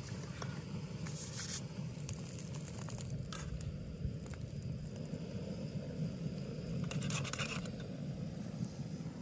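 Gas canister backpacking stove burning steadily under a small frying pan, with a few short scrapes of the pan sliding on the stove's metal pot supports about a second in, at three seconds and around seven seconds.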